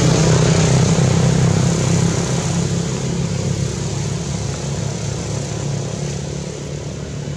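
A motor engine running steadily with a low, even hum, slowly growing fainter.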